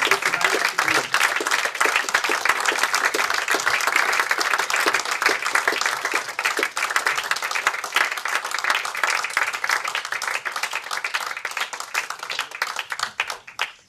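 Audience applauding steadily, thinning out near the end.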